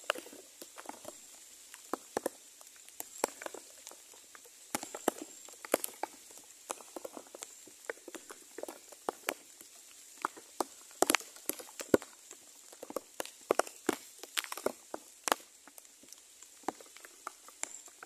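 Irregular rustling and crackling of dry nest material, many small uneven clicks, as the birds shift about in the nest.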